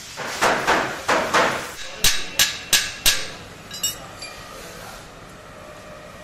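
A spanner worked on the oil drain nut under a Royal Enfield Bullet 350 crankcase: four rasping scrapes, then four sharp metal knocks about a third of a second apart, then a couple of light clinks.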